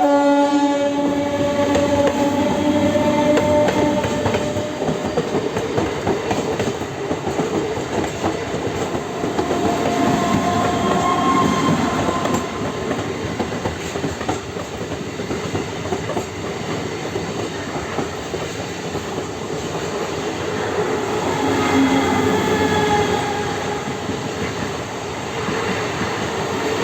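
A train horn's chord fades out over the first few seconds. Then a train runs along the rails with steady clatter and rumble, with faint squealing tones about ten seconds in and again near the end.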